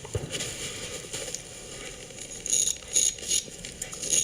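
A sharpened spoon edge scraping through beard stubble in short repeated strokes, several a second, getting louder about halfway in.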